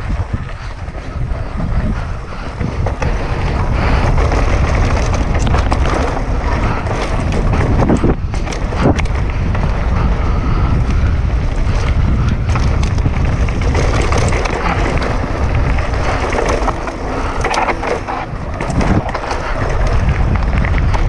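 Downhill mountain bike ridden fast down a dirt trail, heard from a GoPro on the bike or rider: steady wind rush on the microphone and tyre rumble, with frequent knocks and rattles as the bike hits bumps and roots.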